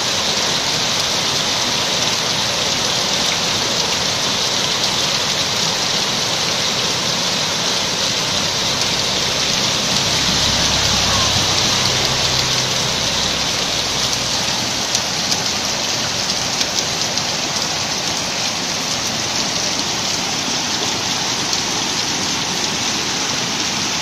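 Heavy rain pouring steadily onto a flooded street, an even hiss. A low rumble swells briefly about halfway through.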